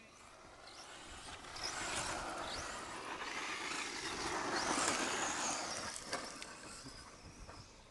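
Radio-controlled off-road short-course truck driving past on a dirt track. A high motor whine glides up and down in pitch with the throttle over the noise of tyres on loose dirt. It grows louder to a peak about five seconds in as the truck passes close, then fades.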